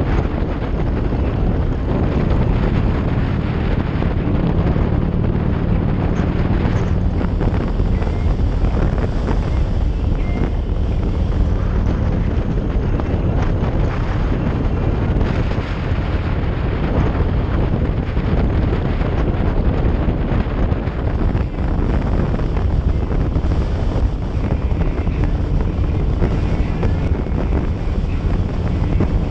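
Steady, loud wind buffeting on the microphone of a camera riding along on a moving motorcycle, with road and vehicle noise beneath it.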